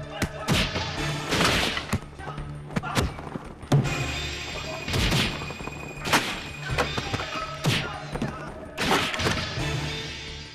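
Fight-scene sound effects: a rapid series of thuds and smacks of punches and kicks landing, with a few short swishes, over dramatic background music.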